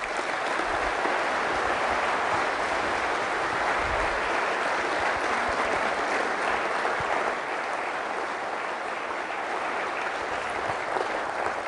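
Lecture audience applauding steadily.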